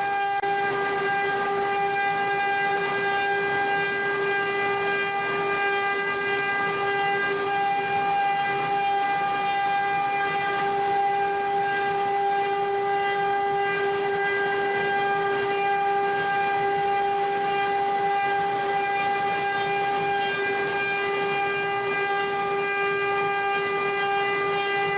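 CNC wood-carving machine's spindle running at a constant speed: a steady high whine that does not change pitch, over a hiss.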